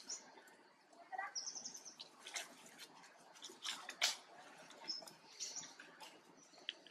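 Birds chirping in short, scattered high calls, including a quick run of high notes about a second and a half in, with a few brief rustles or clicks in between.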